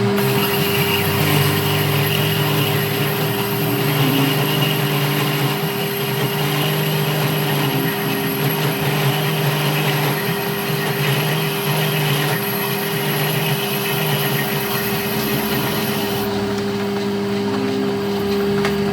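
Workshop machine running: a steady motor hum over a rough mechanical noise, with a lower drone that comes and goes every second or two.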